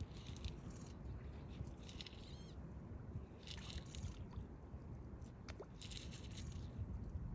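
Water sloshing and splashing in short bursts as turtles feed at the surface, with a few faint bird chirps.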